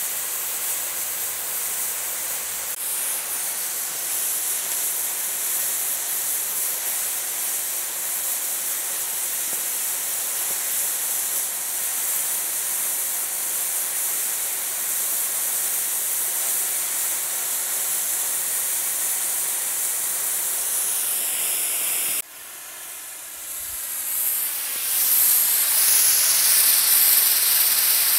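Oxy-fuel cutting torch on a Mathey Dearman Mini Jolli pipe beveler, hissing steadily as it cuts a bevel through a 30-inch steel pipe. About three quarters of the way through the hiss cuts out briefly, then comes back louder.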